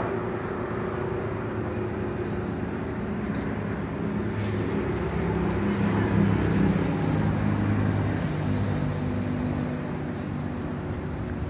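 Steady low engine hum with road traffic noise, swelling slightly midway.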